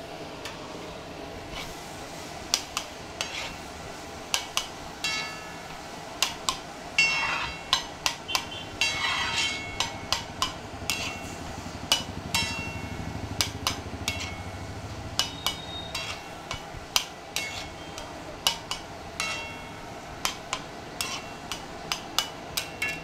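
Flat metal spatula clanking and scraping on a large flat metal griddle in many sharp, uneven strikes, as fried shredded cabbage and cracked eggs are stirred and chopped together.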